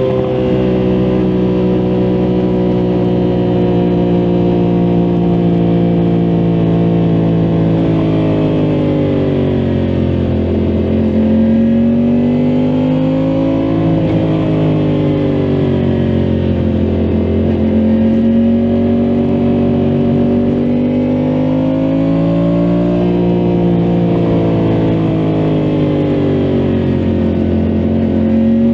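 Yamaha MT-10 SP's crossplane inline-four engine running steadily, its engine speed rising and falling slowly several times.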